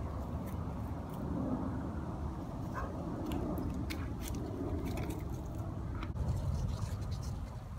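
Wind rumbling on the microphone, with light scattered crunches and clicks of dry leaves and twigs underfoot.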